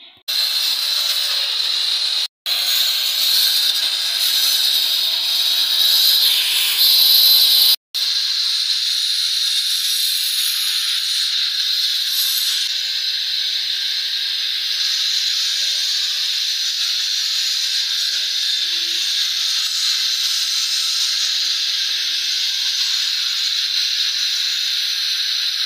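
A loud, steady hiss with no pitch, cut off twice for an instant in the first eight seconds.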